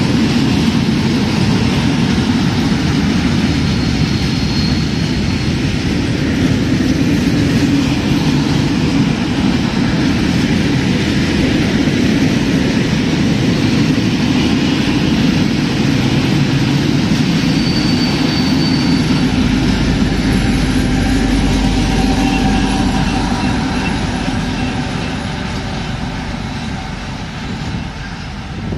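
Steady, loud rumble of a passing train, easing off over the last few seconds.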